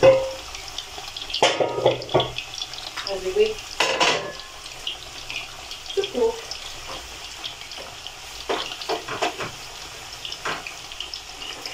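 Plantain pieces deep-frying in hot oil in a steel pan, a steady sizzle of bubbling oil, broken by several sharp clatters of kitchenware being handled, the loudest about one and a half and four seconds in.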